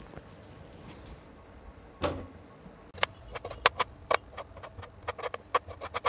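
A kitchen knife slicing onions on a wooden chopping board: from about three seconds in, a quick run of sharp knocks, roughly five a second, each stroke going through the onion into the board. A single duller knock comes about two seconds in.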